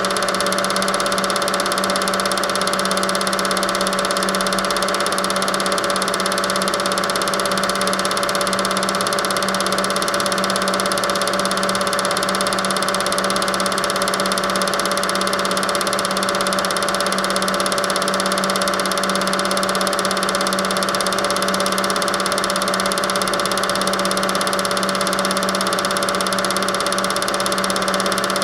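A steady machine hum made of several fixed tones over a low hiss, with no change in pitch or level.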